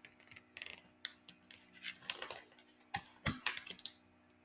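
Faint, irregular rustles and light clicks of a picture book being handled as its page is turned.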